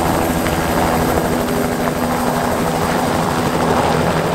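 Helicopter running at full power close by as it lifts off, its rotor blades beating rapidly over a steady engine drone.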